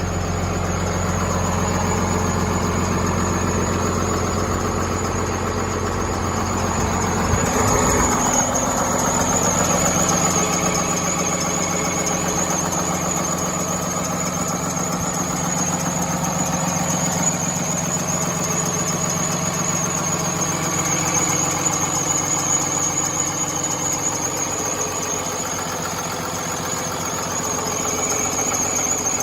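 Engine running at idle with a steady high-pitched whine over it. About eight seconds in, the deep low hum drops out and the whine grows stronger.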